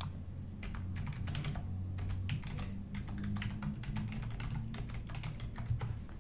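Fast, irregular typing on a laptop keyboard, many quick key clicks, over a steady low hum.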